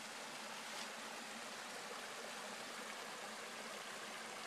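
Small waterfall on a mountain stream, the water running steadily.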